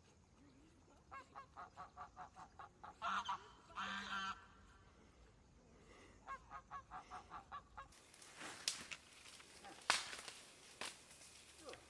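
Domestic goose honking in rapid runs of short calls, with two louder, longer honks in the middle, as it flees an animal swimming after it. About eight seconds in the honking stops, and a few sharp cracks and snaps follow.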